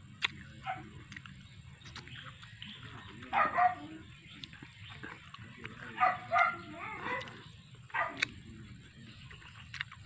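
A dog barking in short bouts, about six barks in all, two or three at a time.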